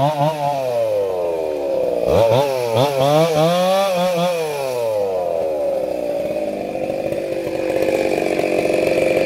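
Two-stroke chainsaw revving and cutting through felled mast-tree branches. The engine pitch wavers up and down with the throttle, drops sharply about two seconds in, then holds a steady high pitch near the end.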